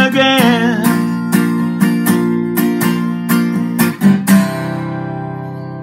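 Takamine acoustic guitar strummed in a steady rhythm, closing out the song; the last chord, struck about four and a half seconds in, rings on and slowly fades.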